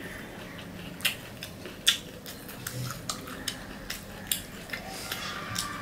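Wet mouth clicks and smacks of someone sucking and chewing a tamarind pod: a string of short sharp clicks, the two loudest about one and two seconds in.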